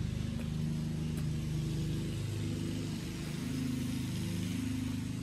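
An engine running steadily, its low hum wavering slightly in pitch.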